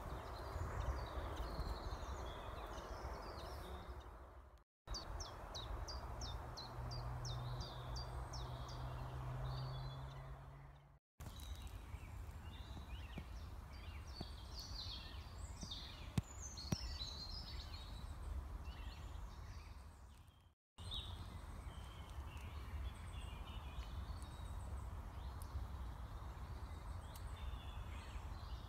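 Songbirds singing outdoors, with scattered chirps and trills and a quick run of repeated descending notes about a quarter of the way in, over a steady low rumble. The sound drops out briefly three times.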